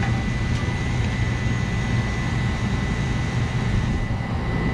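Walk-in cooler's refrigeration condensing unit running steadily, with the compressor drawing the suction side down as the refrigerant is pumped down into the receiver tank. It is a steady low hum under an even rushing noise, with a thin steady high tone.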